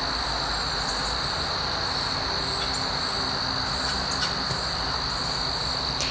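Insects trilling steadily on one unbroken high note, over a soft outdoor background hiss.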